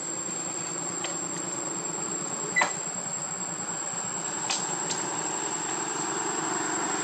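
Steady high-pitched insect call over outdoor hiss, with a few faint clicks and one sharper click about two and a half seconds in.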